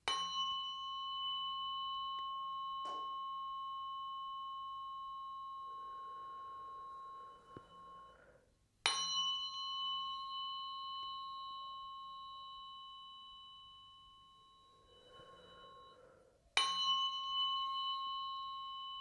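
Tuning fork struck three times, about eight seconds apart, each strike ringing on in a steady high tone that slowly fades.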